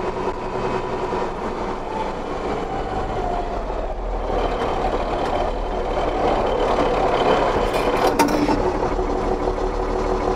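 Ford TW25 tractor's six-cylinder turbo diesel running under way, heard from inside the cab, getting a little louder about four seconds in. A few short knocks sound around eight seconds in.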